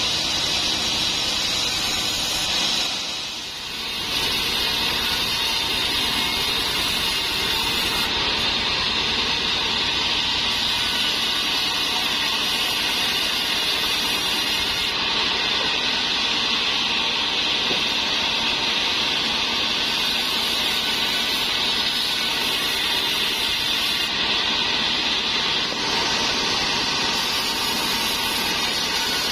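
Large band sawmill running steadily as its blade rips trembesi (rain tree) timber into rafters. The level dips briefly about three seconds in.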